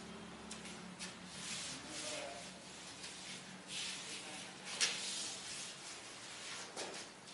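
Chalk writing on a blackboard: a run of short, scratchy strokes and taps, the sharpest about five seconds in.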